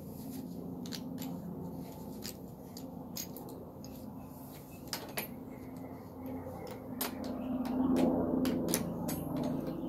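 Scattered metallic clicks and clinks of a three-jaw gear puller being fitted over a frozen wheel bearing on a go-kart spindle, over a low steady hum that swells about eight seconds in.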